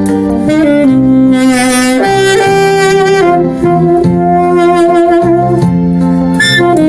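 Alto saxophone played with a plain, untreated tone, carrying a slow melody of long held notes over a lower accompaniment.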